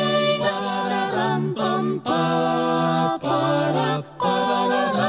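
Mixed-voice a cappella choir singing chords on wordless syllables in short rhythmic phrases, with brief breaks between phrases about every second.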